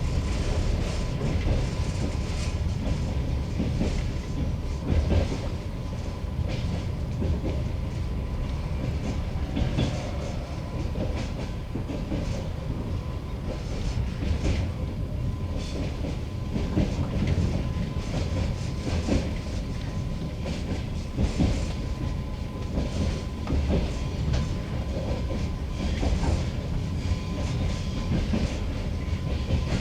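Passenger train wheels clattering over rail joints and station switches, heard from aboard the moving train: a continuous low rumble broken by irregular knocks, with a faint steady whine underneath.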